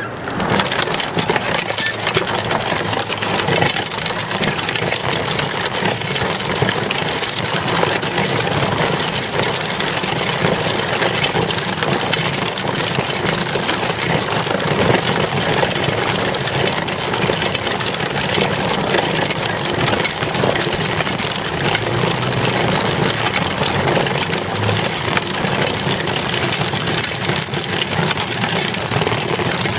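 Child's bicycle rolling steadily over rough pavement: a continuous rushing, rattling noise from the small tyre on the road surface and the shaking bike.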